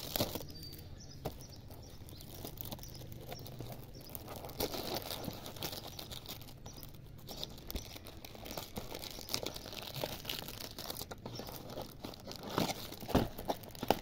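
Clear plastic wrapping on boxes of centre-filled gum crinkling and rustling under a hand, with scattered small taps. The loudest crinkles come near the end, as the hand reaches in among the wrapped pieces.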